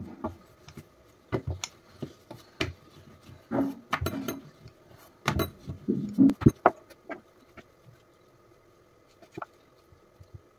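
Wooden rolling pin rolling out a ball of dough on a kitchen countertop, with repeated knocks and clatter as the pin is set down and worked back and forth. The knocking thins out about seven seconds in, leaving a few faint taps.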